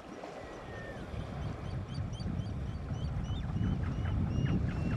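African elephants wading into shallow water, their legs sloshing and splashing, growing louder as the herd moves in. Small birds chirp and whistle over it.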